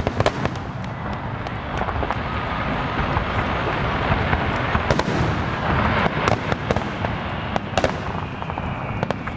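Aerial fireworks shells bursting overhead: many sharp bangs and cracks at irregular intervals, over a continuous background din.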